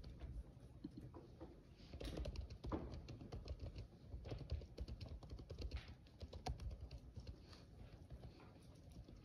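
Laptop keyboard typing: quick, irregular key clicks over a low room hum.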